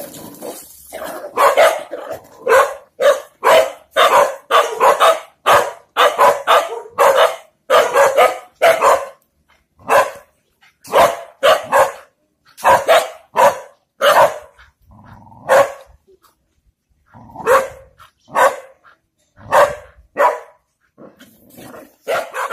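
Dog barking repeatedly, about two barks a second at first, then more spaced-out barks with short pauses in the second half.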